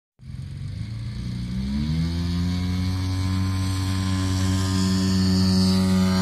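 RC model aircraft engine starting up and running up to full throttle: the pitch climbs about one and a half to two seconds in, then holds steady and loud, as for an aerotow takeoff of a model glider.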